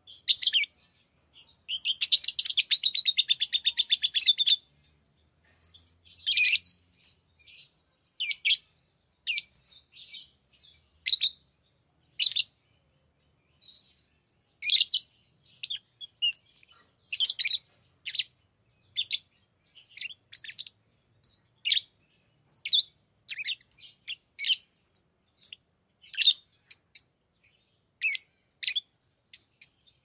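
Pet lovebirds chirping: a dense, rapid run of chattering chirps from about two to four and a half seconds in, then short, sharp chirps, one or two at a time, every second or so.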